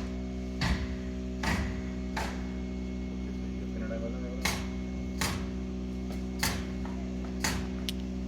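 Sharp clicks and taps of small metal parts and tools being handled during carburetor work, about nine of them at uneven spacing, over a steady hum.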